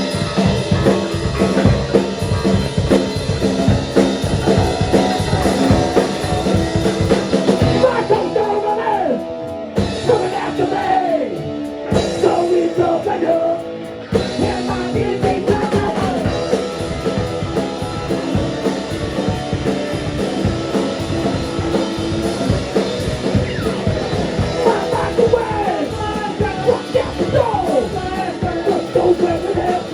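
A rock band playing live, with a drum kit, electric guitar and bass under a singing vocal. Near the middle the drums drop out for a few seconds, then the full band comes back in.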